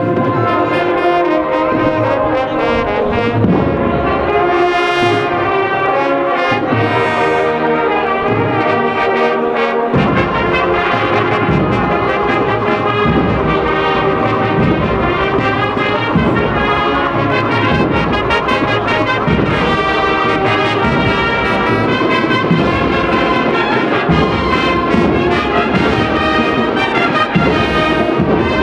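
A Spanish Holy Week brass band (agrupación musical) playing a processional march, with trumpets and trombones in sustained chords. A steady drum beat comes in about ten seconds in.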